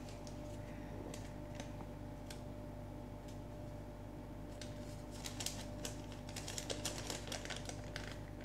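Faint crinkling and ticking of a paper till receipt being handled and turned in the fingers, busiest in the middle, over a steady faint hum.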